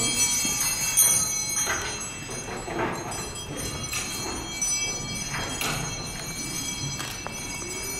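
Bells ringing, a new strike about every second over a steady ring of overlapping tones.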